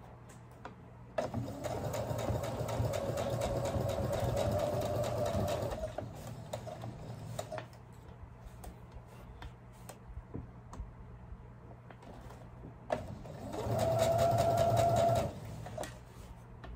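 Brother computerized sewing machine stitching a basting seam in two runs: one of about five seconds starting a second in, and a shorter one of under two seconds near the end. Light clicks of fabric and machine handling come between them.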